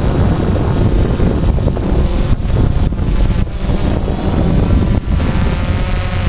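DJI Phantom quadcopter's four brushless motors and propellers buzzing loudly in flight, heard from the GoPro mounted on the drone itself. The sound is steady, with a few brief dips.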